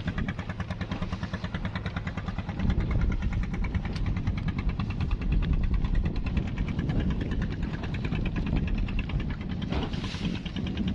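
Fishing boat's engine idling with a steady, rapid beat, heard from on board.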